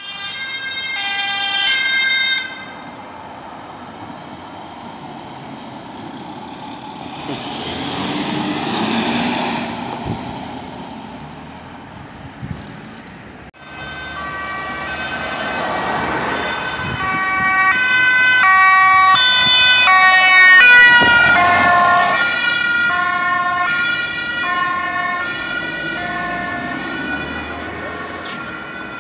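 Two-tone sirens of emergency vehicles on call, stepping back and forth between a high and a low note. Near the start one siren stops abruptly and a vehicle passes. About halfway through, after a cut, another two-tone siren comes in, grows loud, and drops in pitch as the vehicle goes by.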